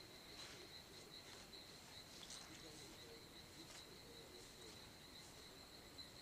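Faint insect chorus: a steady, high, rapidly pulsing trill, with a few brief faint higher chirps over it.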